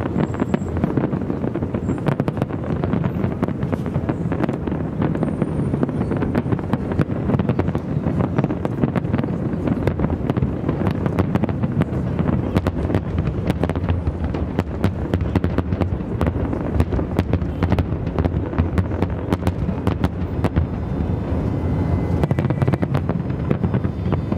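Aerial firework shells bursting in a dense, continuous barrage: many sharp bangs and crackles in quick succession over a deep, steady rumble.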